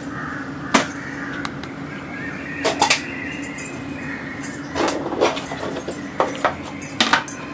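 A few scattered clinks and knocks of a ladle being set back into an aluminium pressure cooker beside a steel plate, over a steady low hum.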